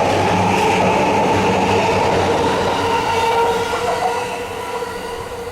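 Electric commuter train running along the platform, with a steady motor whine over the rumble and clatter of wheels on rails. It fades away over the last couple of seconds as the train moves off.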